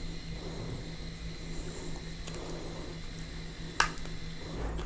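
Faint handling sounds of a pistol grip screw being turned out by hand, with one sharp click of a small part about four seconds in.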